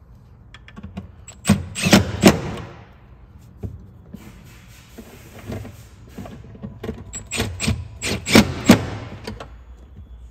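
Clusters of sharp clicks and knocks from hand tools and hardware at work on a car's under-seat subwoofer mounting: one burst about a second and a half in, and a longer run of clicks about four or five a second around eight seconds in.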